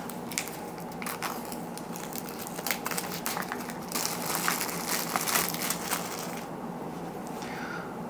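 Clear plastic wrapper crinkling and crackling as it is peeled off a cardboard box by hand, dying down near the end.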